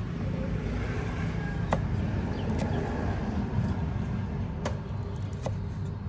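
A cleaver knocking on a round wooden chopping board as red chilies are cut, about four single sharp chops at uneven intervals, over a steady low rumble like a vehicle engine.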